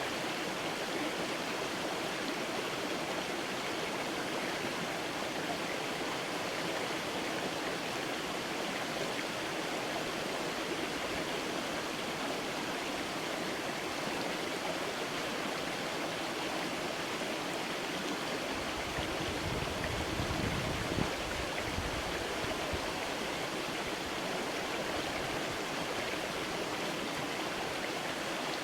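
Creek water flowing steadily, an even rushing babble. A low rumble joins it for a few seconds about two-thirds of the way through.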